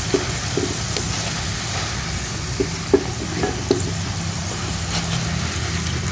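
Potato fries sizzling steadily as they deep-fry in hot oil in a wok, nearly done and crisp, over a low steady hum. A few light clinks and scrapes come from a wire-mesh spider strainer lifting the fries, with the sharpest knock about three seconds in.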